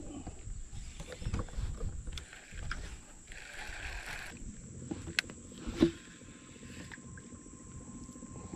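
Sounds of casting from a fishing boat. A baitcasting reel's spool whirs for about a second as a cast goes out. A low, uneven rumble runs underneath, with a few clicks, and a single sharp knock a couple of seconds after the cast is the loudest sound.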